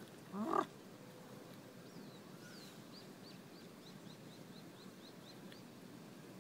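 Infant Japanese macaque gives one short call about half a second in. A bird repeats a quick falling chirp faintly in the background, about three times a second, for a few seconds.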